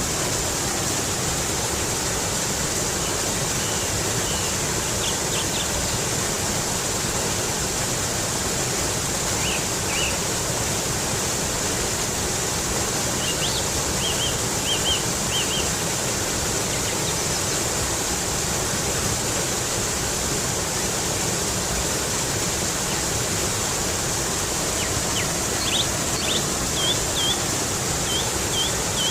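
Water flowing steadily over rocks, with a bird calling now and then in short runs of quick high chirps, clearest about halfway through and near the end.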